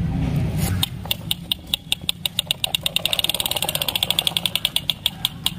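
Plastic toy tractor rolling over sand, its built-in engine-sound mechanism giving a rapid, even run of clicks that starts about a second in and quickens slightly.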